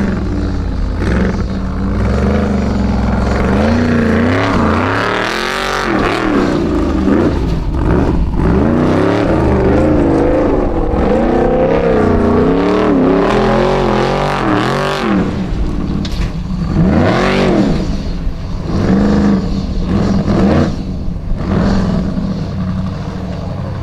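Formula offroad buggy's engine revving hard, over and over, its pitch climbing and dropping in quick surges with short lifts of the throttle between them.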